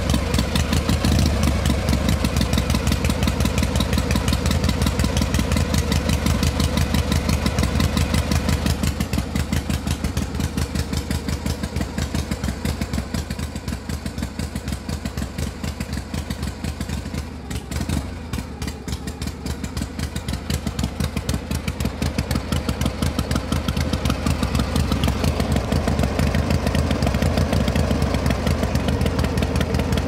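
A motor vehicle's engine idling steadily with a fast, even firing beat. It runs a little quieter through the middle stretch and comes back up toward the end.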